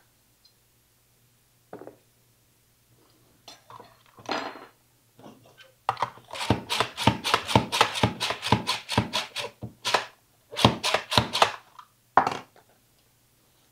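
Button mushrooms being sliced in an upright plunger-style vegetable slicer. A few scattered knocks and clicks are followed, about six seconds in, by a quick run of sharp chopping strokes, about four a second, lasting some five seconds, then one last knock.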